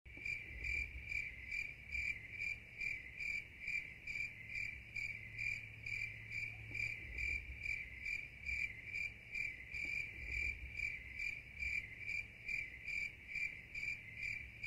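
Cricket-like chirping: evenly spaced high chirps, a little over two a second, with a faint low hum beneath.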